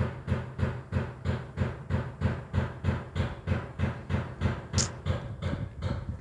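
Heavy, rapid pounding on a door: steady blows at about three a second that do not let up. A single sharp click comes about five seconds in.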